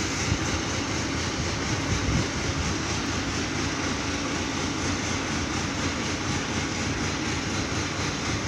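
Mobile crane's diesel engine running steadily while hoisting a tractor.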